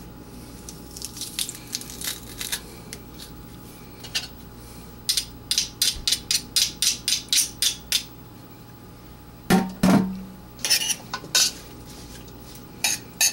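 Metal clicks and taps from a garlic press being worked over a stainless steel pot as garlic is pressed in: scattered clicks at first, then a steady run of about a dozen quick clicks, and two louder knocks about three-quarters of the way through.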